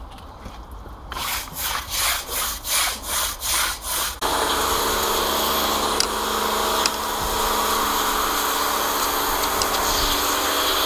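Wire brush scrubbed back and forth over wet block paving, about three strokes a second. About four seconds in, an electric pressure washer starts up suddenly and runs steadily, its jet spraying the paving.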